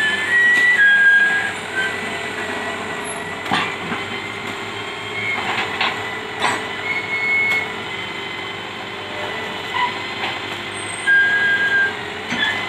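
Old Hitachi UH07 hydraulic excavator running steadily while its boom and bucket work, with several short high-pitched squeals and a few sharp metallic knocks at about three and a half and six seconds in.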